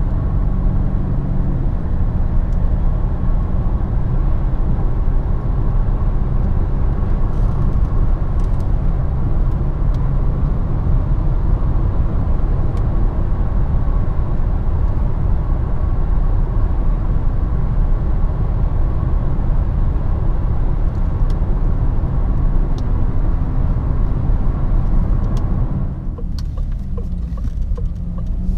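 Cabin noise inside a DS7 Crossback 2.0 BlueHDi 180 driving at around 100–117 km/h: steady road and tyre rumble with the four-cylinder turbodiesel's drone. Near the end the noise turns quieter.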